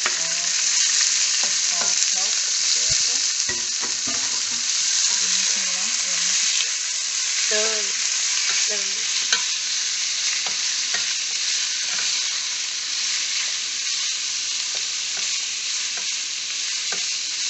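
Diced raw pork frying in hot oil with garlic in a stainless steel pan, a steady sizzle, while a wooden spatula stirs it with scattered scrapes and clicks against the pan.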